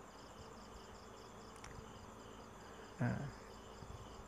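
Faint insect chirping, a steady pulsing high trill, with a brief short voice sound from the man about three seconds in.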